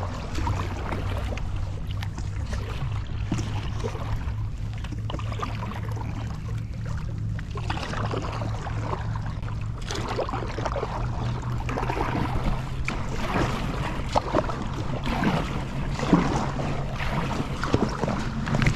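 Kayak paddle strokes in water, with a steady low hum throughout.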